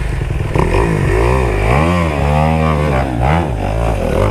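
Dirt bike engine revving in a string of rising and falling pitch swings, with a steady idling engine underneath.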